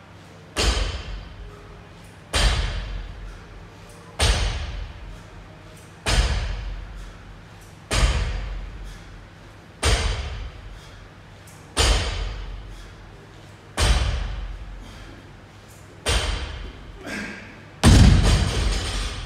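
Loaded barbell with bumper plates set down on the floor at each rep of a deadlift set: ten heavy thuds at a steady pace, about one every two seconds, each dying away over about a second. The last thud is the loudest, as the bar is put down at the end of the set.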